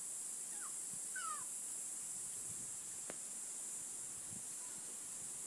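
Steady high buzz of insects, with two short falling chirps about a second in and a single sharp click near the middle.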